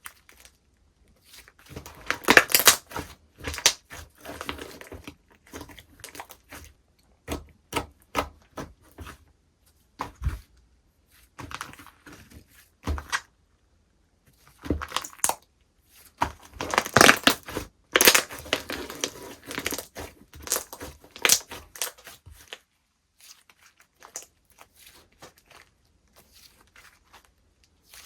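Hands working a textured slime: irregular bursts of crackling, tearing and crunching as it is stretched and pressed. The bursts fade to faint handling for the last few seconds.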